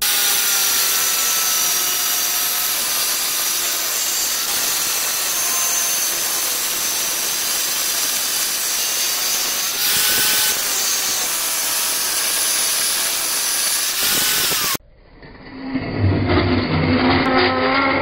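Angle grinder with a thin cut-off disc cutting through the laminated steel core of a microwave oven transformer: a loud, steady grinding with a faint whine that wavers under load. It stops abruptly about fifteen seconds in.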